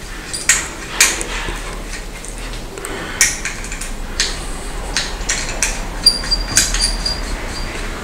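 Small metal clicks and scrapes as a knurled hose fitting is screwed by hand onto the compressor's pipe stub, connecting the flushing line. About six seconds in there is a brief high metallic ring.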